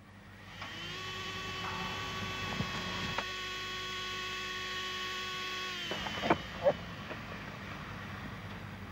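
A steady motor-like hum with several even pitches. It starts about half a second in with a slight rise, holds for about five seconds, then dies away. Two short, sharp sounds follow.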